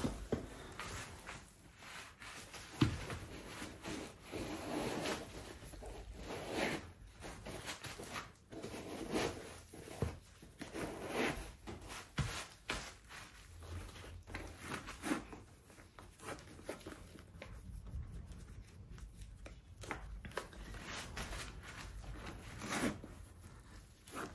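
Shoes and their packaging being handled by hand: irregular rustling and rubbing with small clicks and a few sharper knocks.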